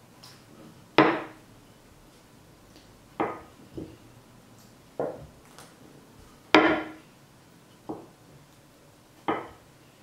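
Small wooden rolling pin knocking against a bamboo cutting board as dough is rolled out: seven sharp wooden knocks at uneven intervals, two of them louder than the rest.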